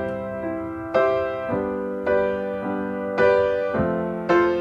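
Slow piano chords, a new chord struck about every half second to a second and left to ring out, with no singing.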